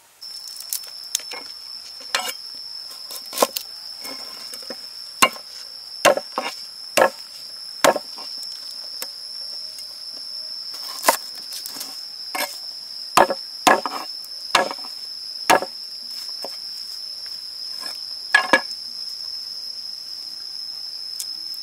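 A cleaver knocking on a wooden cutting board as it crushes and chops garlic cloves, about twenty sharp, irregular knocks that stop near the end. Under them an insect trills steadily at a high pitch.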